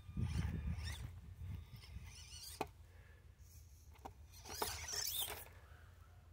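Small electric motor and geartrain of an Axial SCX24 Jeep Gladiator RC crawler whining as it is throttled over rocks, rising and falling in pitch in two bursts, in the first second and again near the end. A couple of sharp clicks come in between.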